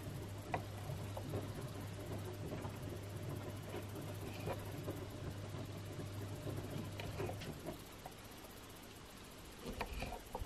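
Faint, scattered clicks and taps of knives on wooden cutting boards as cherry tomatoes are sliced, over a low steady hum that stops about three-quarters of the way through.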